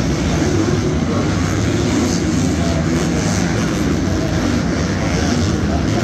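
Several 250cc four-stroke supercross motorcycles running on the track at once, their engines blending into a steady, loud drone.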